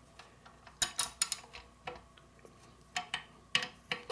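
Metal tools clinking and tapping: a Torx bit socket and its drive being handled and fitted against the screws of a motor's metal cover. There are about eight sharp, uneven clicks, loudest about a second in and again just before the end.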